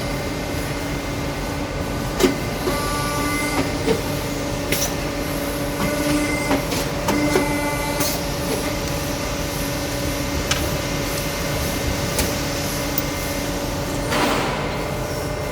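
CNC tube bending machine running: a steady pitched hum under scattered sharp clicks and knocks, with short whining tones a few times and a brief burst of hiss near the end.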